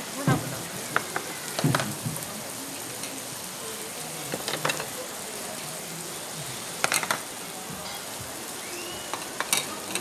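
Deodeok root in red chili sauce sizzling in a hot stone bowl: a steady hiss, with a few sharp clicks now and then.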